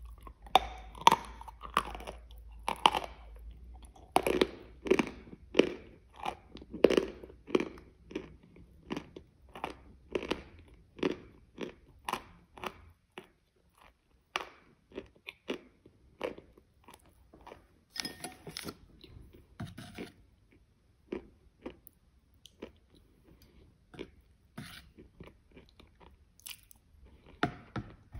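Close-miked mouth sounds of chewing a zefir coated in chocolate crumbs, with short crisp crunches. The crunches come thick and loud for the first dozen seconds, then thin out to scattered, softer chews.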